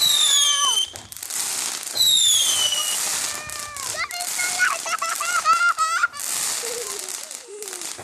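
Fireworks going off, with two high whistles that each fall in pitch over about a second, one at the start and one about two seconds in, among crackling.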